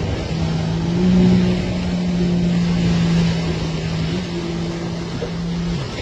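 Jet ski engine running at a steady throttle over a hiss of wind and spray. Its pitch rises slightly about a second in and drops away near the end as the throttle comes off.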